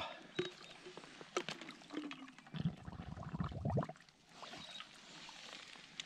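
A water bottle being dipped and filled at the edge of an icy pool: a few light knocks and splashes, then a second or so of gurgling as water runs into the bottle.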